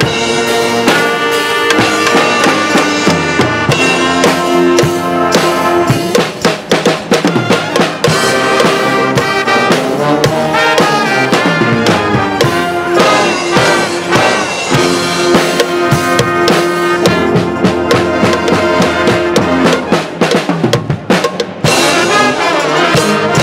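Pep band playing: trumpets, mellophones, saxophones and sousaphone over a drum kit, with frequent sharp drum hits.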